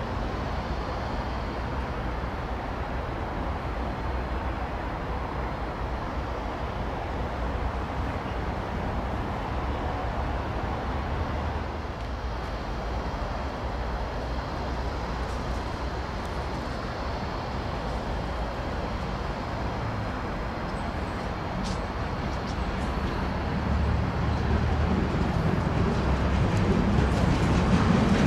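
Steady distant traffic-like rumble, then an approaching container freight train hauled by a BLS Cargo Vectron (Re 475) electric locomotive, its noise growing louder over the last few seconds.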